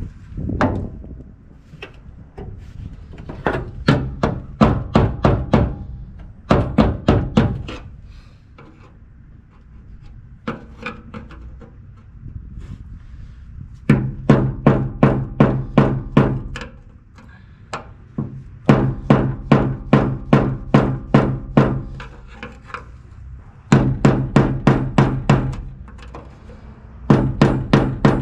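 Hammer blows on a screwdriver driven against the tab of a rusted fuel-tank sending-unit locking ring, in runs of rapid strikes at about four a second with pauses between. The steel tank rings after each blow.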